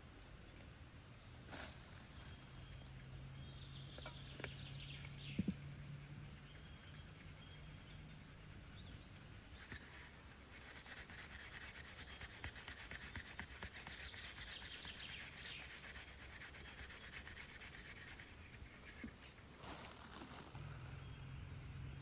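Faint outdoor ambience: rubbing and scraping from hands at work, with a few birds chirping. A low steady hum is there near the start and again near the end.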